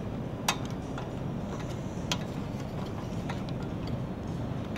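A metal spoon stirring chopped dark chocolate in a stainless-steel pot, clinking sharply against the pot a few times, about once every second or so, over a steady low hum.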